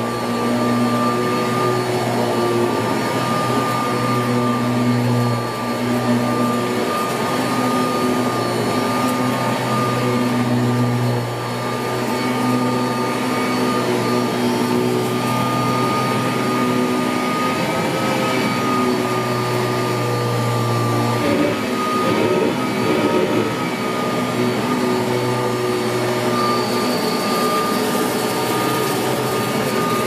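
1981 Kirby Heritage 1 upright vacuum cleaner running on carpet as it is pushed back and forth: a steady high whine over a loud rushing noise, with a low hum that comes and goes every few seconds.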